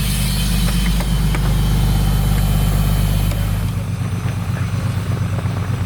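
Motor vehicle engine idling with a steady low hum, which eases off a little under four seconds in.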